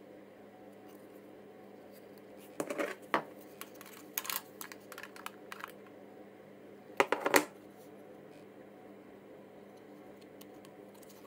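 Red acrylic Pibow Raspberry Pi cases being handled, their hard plastic layers clicking and clattering together: a cluster of sharp clicks about two and a half seconds in, lighter scattered taps around four to five seconds, and a quick loud rattle of clicks about seven seconds in.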